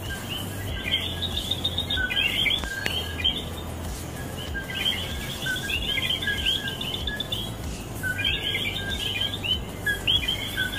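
A chorus of coquí frogs calling at night: many overlapping two-note "co-quí" calls, each a lower note followed by higher chirps, repeating without pause.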